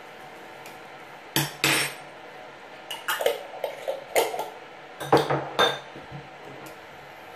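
A metal teaspoon clinking against a small glass jar and on the worktop: two sharp knocks about a second and a half in, then two quick runs of clinks and knocks as the jar is handled.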